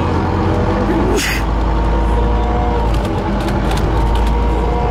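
City bus running, heard from inside the passenger cabin: a steady low rumble with a faint high whine. A short hiss comes about a second in.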